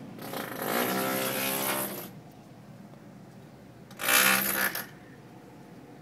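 Two loud, buzzing bursts of construction machinery noise, a pitched drone: the first about two seconds long, the second a shorter, louder one of about a second, near the end.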